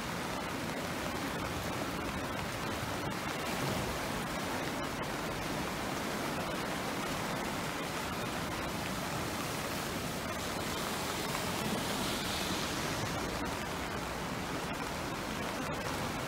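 River in flood rushing through its channel: a steady, even noise of fast, high water.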